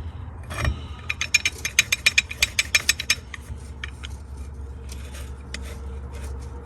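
Billet forward hub being worked back and forth into a TH400 forward drum, its splines clicking against the steel and friction clutch plates as he tries to line up the last clutch. A quick run of metal clicks, about seven a second, lasts about two seconds, then scattered clicks follow.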